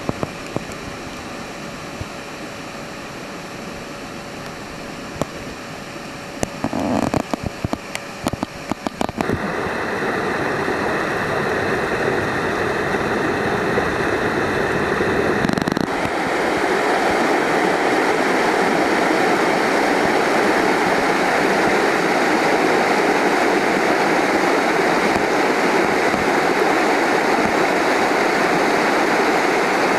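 Rushing water of a mountain stream and waterfall, a steady loud hiss that steps up in loudness about ten seconds in and again about sixteen seconds in. A cluster of sharp clicks and knocks comes around seven to nine seconds in.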